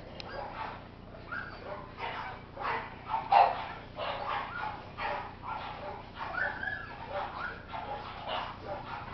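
Several dogs barking, yipping and whining over one another as they jump up at an object held above them, with a louder bark about three and a half seconds in.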